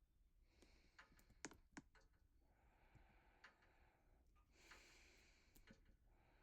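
Near silence, with a few faint sharp clicks about one to two seconds in and soft hiss.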